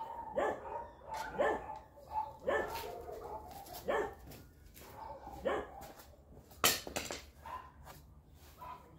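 A dog barking repeatedly, short calls falling in pitch about once a second, with a single sharp knock about two-thirds of the way through.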